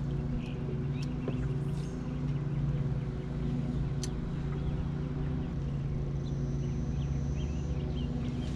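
Bass boat's bow-mounted electric trolling motor running with a steady hum, with faint bird chirps over it.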